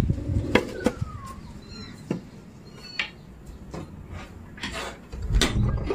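Light scattered clicks and taps as pigeons move about on a tiled floor, with a few short high bird chirps and a falling whistle-like note about a second in.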